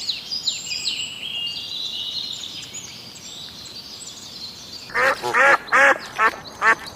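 Birds calling. First there are high, chirping, whistled notes. From about five seconds in, a louder bird gives repeated harsh calls, about two a second.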